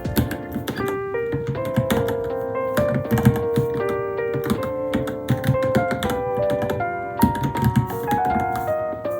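Typing on a Varmilo Minilo mechanical keyboard: a quick, irregular run of key clacks over background piano music.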